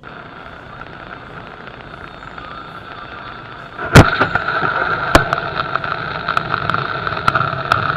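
Steady road and rain noise of a car driving on a wet highway. About four seconds in there is a single very loud sharp bang. After it the noise is louder and carries scattered sharp clicks and crackles.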